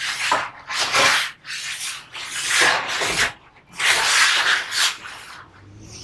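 Cardboard carton scraping and rubbing against the plastic sheet around a washing machine as it is lifted off, in several irregular bursts with plastic rustling.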